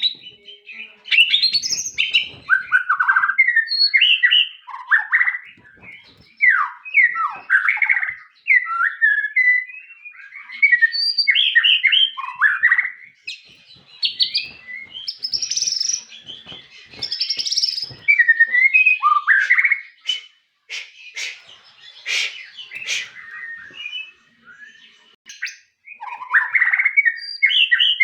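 White-rumped shama (murai batu) singing a long, varied song of loud whistled phrases that slide up and down, broken by short pauses, with a run of sharp clicking notes past the middle.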